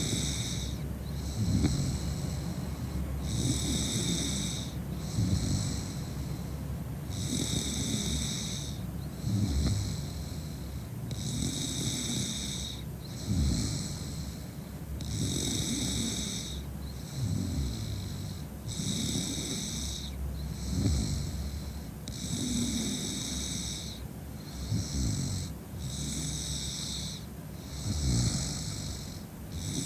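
A drunk woman snoring in her sleep, with a snore or a hissing breath about every two seconds in an even rhythm.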